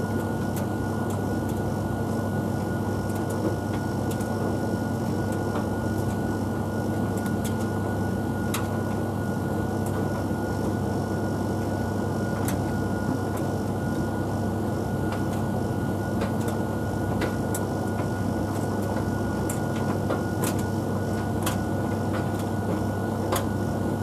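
Tumble dryer running a drying programme: a steady motor and fan hum with a thin steady high tone, and scattered light ticks as the clothes tumble in the drum.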